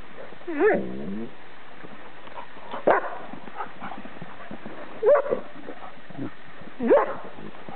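Dogs at rough play, an English setter and a poodle, giving four short yelping barks about two seconds apart.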